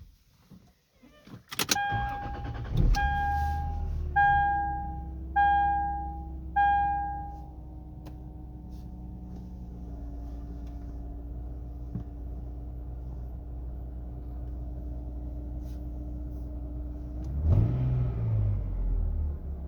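2002 Lexus IS300's 2JZ-GE inline-six cold-started, catching after a click, then idling with a steady whine, most noticeable at idle, which the owner suspects is a failing oil pump rather than the alternator. A warning chime sounds five times just after the start, and the engine is revved briefly near the end.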